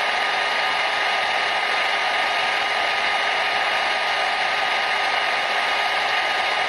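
Hair dryer running steadily: an even rush of blown air with a faint steady whine, unchanging throughout.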